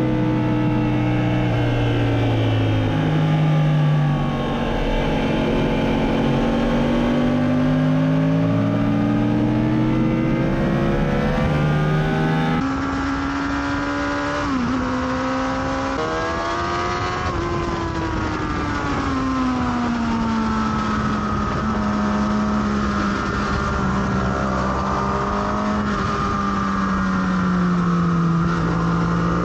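Sport bike engine heard from on the bike at track speed, its pitch falling as the rider rolls off into corners and rising again on the throttle. The sound changes abruptly about halfway through at a cut to another camera shot.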